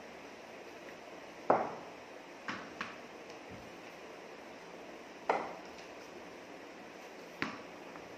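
Five sharp knocks on a hard floor, each with a short ringing tail. The loudest comes about a second and a half in, a lighter pair about a second later, and two more near the middle and end.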